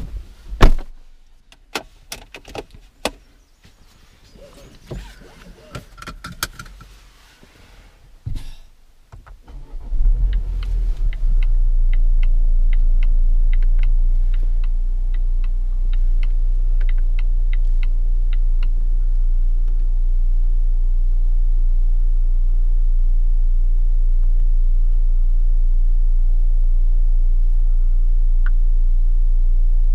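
Several separate clicks and knocks, then about ten seconds in the Volvo XC40 T5's 2.0-litre turbocharged four-cylinder petrol engine starts and runs on with a steady low rumble. A run of regular light ticks follows the start for several seconds.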